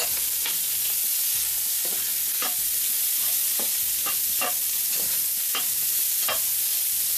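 Diced onions and salt pork sizzling in hot rendered fat in a pot, with a spatula scraping and stirring them in short strokes about every half second. The onions are just going in to soften in the pork fat.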